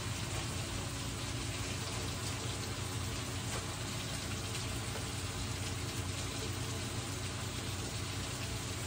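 Pork belly pieces frying in a pan, giving a steady sizzling hiss, with a steady low hum underneath.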